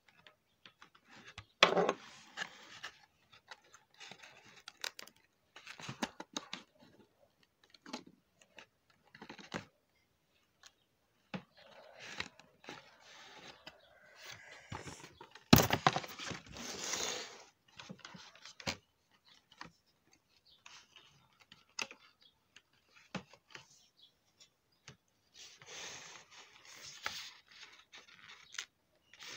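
Cardboard and plastic doll packaging being handled: scattered rustling, scraping and clicking, with a sharp knock about two seconds in and a louder one about halfway through.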